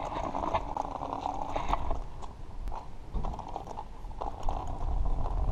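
Quick ratcheting ticks of a bicycle freewheel as the bike coasts, over a low rumble that grows heavier near the end.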